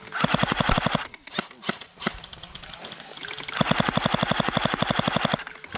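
Electric airsoft pistol in a carbine kit firing full-auto: two rapid rattling bursts of shots, a short one just after the start and a longer one of nearly two seconds later on, with a few separate clicks between them.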